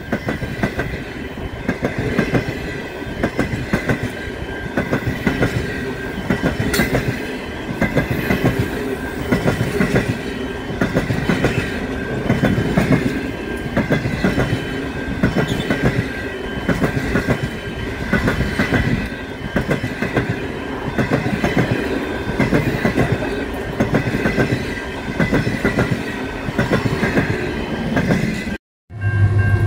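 Train of passenger carriages passing close by at speed: steel wheels clattering over the rail joints in a steady, regular clickety-clack, with a faint steady whine from the running gear. The sound breaks off for a moment just before the end.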